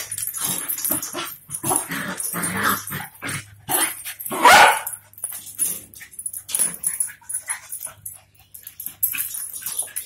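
Two dogs barking and yipping at each other in play, in short irregular bursts, with one loud bark about four and a half seconds in.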